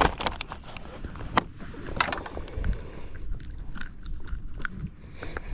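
Wind rumbling on the microphone outdoors on open water, with a few sharp clicks or taps scattered through it. The loudest clicks come about a second and a half in and at two seconds.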